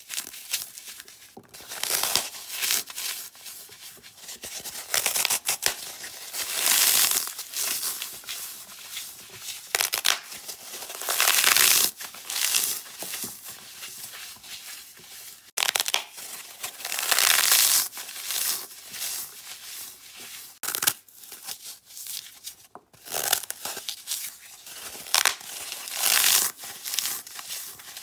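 Oven-baked dry floral foam being broken and crumbled by hand: dry crunching and crumbling in uneven bursts, some lasting a second or two, with short pauses between.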